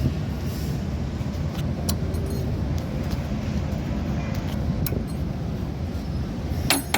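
A steady low rumble with a few scattered sharp metallic clicks and clinks, the loudest just before the end.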